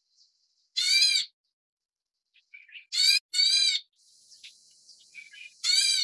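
Black bulbuls calling: four harsh calls of about half a second each, the middle two back to back, with softer short chirps between them.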